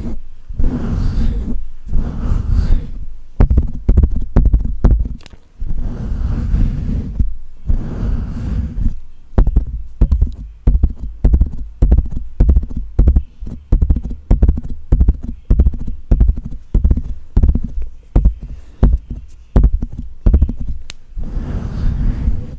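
Close-miked ASMR mouth sounds: wet tongue clicks and mouth pops in fast, irregular runs, with a few breaths mixed in during the first half.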